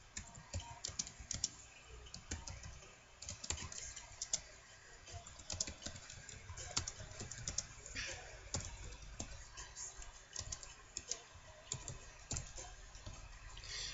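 Computer keyboard being typed on: a faint, irregular run of key clicks with brief pauses between words.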